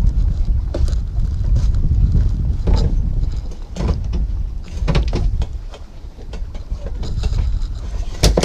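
Wind buffeting the microphone as a continuous low rumble, with scattered knocks and clicks from a plastic pole being worked in a deck fitting; the sharpest knock comes near the end.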